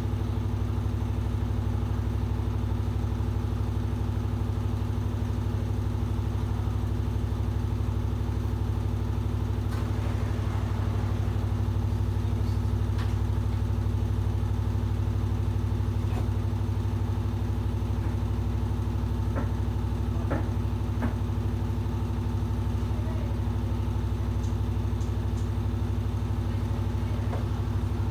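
Washing machine running steadily under test: an even motor hum with a steady low drone, plus a few light clicks.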